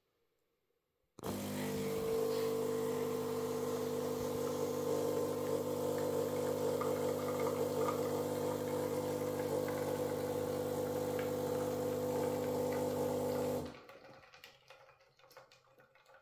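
Philips HD8847 automatic espresso machine brewing: after about a second of silence its pump starts with a steady mechanical hum while espresso pours into the cup. Near the end the hum cuts off sharply, leaving a few faint clicks.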